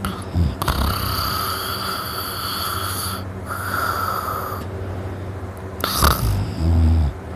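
A person snoring hard in deep sleep, loud enough to sound like a grizzly bear, which the sleeper puts down to a very relaxed throat. A long high-pitched breath fills the first half, and low rasping snorts come about six seconds in and again near the end.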